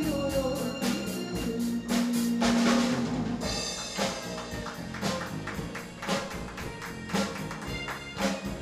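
A live rock band playing a song on drum kit, electric bass, electric guitar and keyboard, with a steady drum beat about twice a second.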